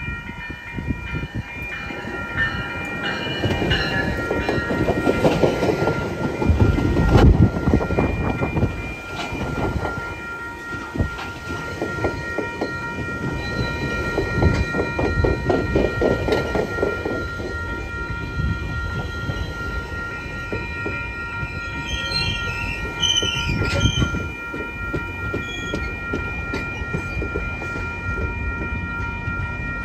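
GO Transit bi-level commuter train passing over a level crossing: wheels rumbling and clacking over the rail joints as the coaches go by. The crossing's warning bell rings steadily throughout, and a brief high squeal comes about two-thirds of the way through.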